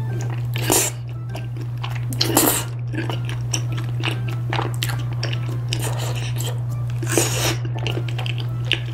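Close-miked eating of bunmoja, thick chewy starch noodles coated in creamy rosé tteokbokki sauce: the noodle is sucked in and bitten off, with wet chewing between. The loudest moments come about a second, two and a half seconds and seven seconds in, over a steady low hum.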